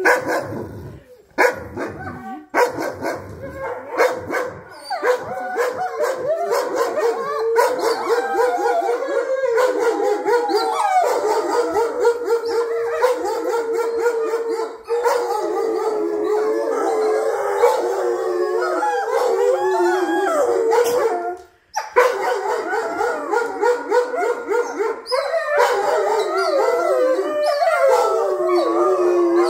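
Several wolfdogs howling together, overlapping wavering howls in a chorus, with short barks and yips in the first few seconds. The howling breaks off briefly about three-quarters of the way through, then starts again.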